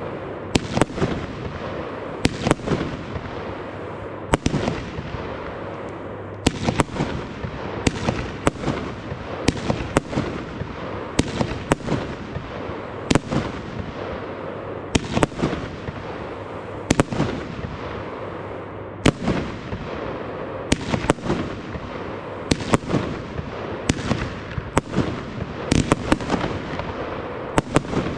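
WECO Shinobi firework battery (cake) firing shot after shot. Sharp bangs come about every one to two seconds over a continuous hissing crackle from the rising comet tails and bursts.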